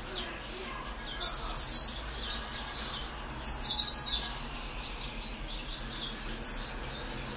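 Caged finches, a grey singing finch kept with a serin, singing in short, high, rapid chirping phrases, loudest about a second in, again around three and a half seconds, and near the end.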